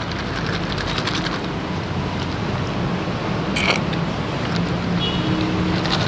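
Steady city street traffic noise, with one short high-pitched squeak a little past the middle.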